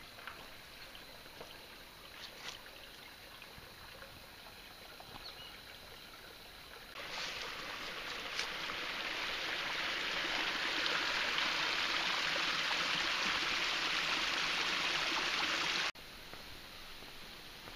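Small stream of water running over rocks: faint at first, then a loud, steady rush from about seven seconds in that builds and cuts off suddenly near the end.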